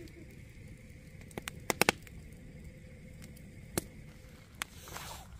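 Log fire crackling in a steel campfire ring, with a handful of sharp pops, several in quick succession about two seconds in.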